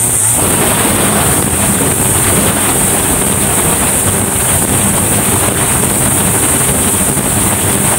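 Backpack brush cutter's small two-stroke engine running flat out, held at a steady high speed and loud.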